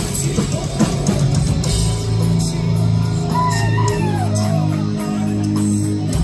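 Heavy metal band playing live in a club, recorded from the crowd: pounding drums and distorted guitars that settle after a couple of seconds into long, held low chords, with a higher line bending in pitch above them about halfway through.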